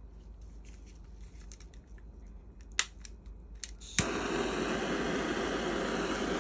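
A handheld jet-flame torch lighter is lit with a click about four seconds in, and its flame then hisses steadily. Before that come light handling clicks and one sharp click.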